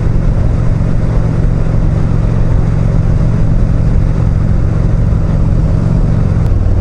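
Honda Shadow V-twin motorcycle engine running steadily at cruising speed, with wind rushing past the microphone. Its note drops slightly near the end.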